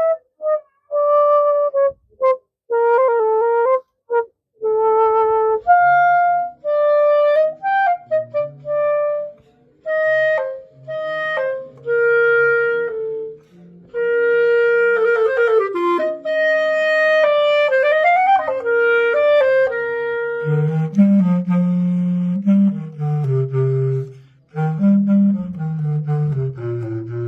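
Woodwind instruments of a symphonic band playing demonstration phrases. A single melodic line of held notes is joined a few seconds in by a lower part, which grows stronger over the last several seconds.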